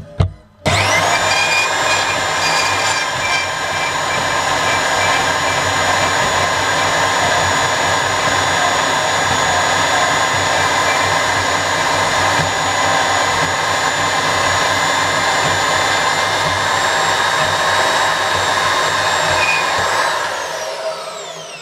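Makita 2107F portable bandsaw starting up and cutting through a 10 mm by 30 mm bar, fed only by the machine's own weight, with a steady motor whine and blade rasp. It is switched off about twenty seconds in and winds down with a falling pitch.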